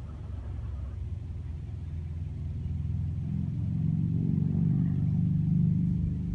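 A motor vehicle's engine going by: a low rumble that builds, is loudest about four to six seconds in, then drops off near the end.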